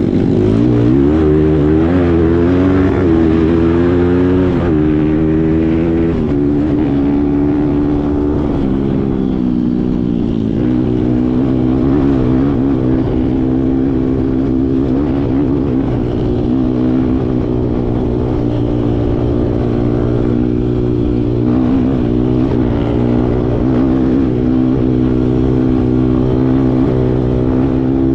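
Kawasaki KLX140 dirt bike's single-cylinder four-stroke engine running under load. The engine note rises and falls with the throttle for the first ten seconds or so, then holds steadier.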